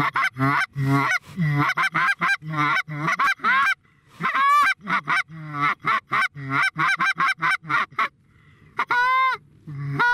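Rapid goose honks and clucks, about three or four a second, broken by a short pause about four seconds in. A longer drawn-out honk comes near the end.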